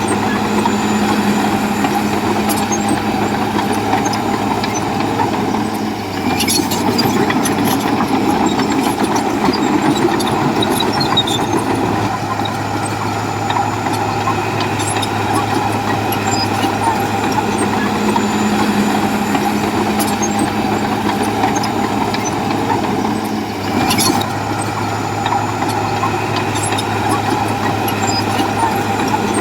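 Heavy diesel engine of a crawler bulldozer running steadily. It works harder for several seconds from about six seconds in, with a sharp metallic clank near the start of that stretch and another near the end.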